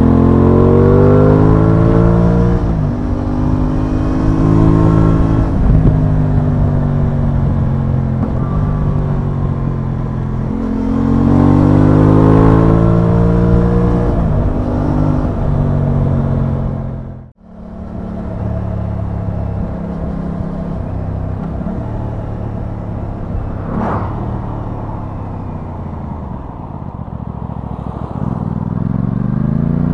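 Aprilia Tuono 660's parallel-twin engine heard from the rider's seat on the move: it revs up, drops in pitch at each gear change, then holds steady while cruising, pulling up again about eleven seconds in and near the end. The sound cuts out abruptly for a moment about seventeen seconds in.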